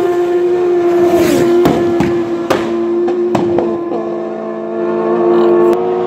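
Road-racing motorcycle engines screaming at high revs. Bikes pass at speed, the pitch dropping several times as each one goes by, with a few sharp cracks among them.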